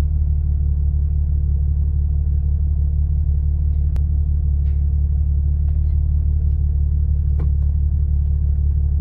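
A vehicle's engine idling steadily, a deep, even rumble heard from inside the cab, with a couple of faint clicks partway through.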